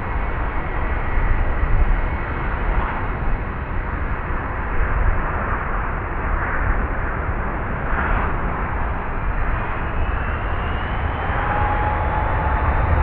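Airbus A320's IAE V2500 turbofan engines running with a steady jet rumble and roar. Near the end a whining tone rises in pitch as the engines grow louder.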